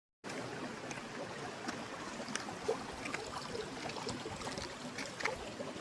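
Water flowing and splashing steadily, like a small stream running over stones, with many small splashes and trickles through a constant wash.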